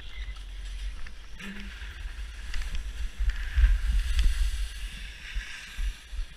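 Skis sliding and scraping over groomed snow as the skier glides downhill, with wind rumbling on the camera's microphone that grows louder in the middle as speed picks up.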